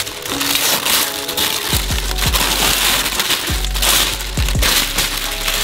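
Packaging rustling and crinkling in a box as it is unpacked by hand, with many small crackles.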